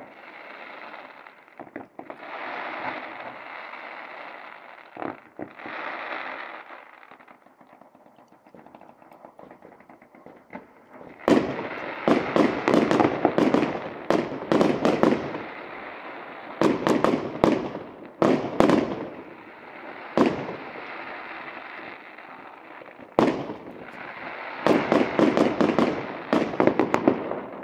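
Fireworks going off: a fountain firework hissing and crackling for the first ten seconds or so, then from about eleven seconds in, rapid runs of sharp bangs and crackling from aerial fireworks. The runs come in clusters, with a short lull and another dense run near the end.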